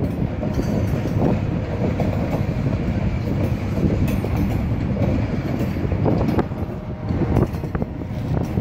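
Slow freight train of covered hopper cars rolling by: steel wheels rumbling on the rails, with irregular clacks as the trucks pass over rail joints.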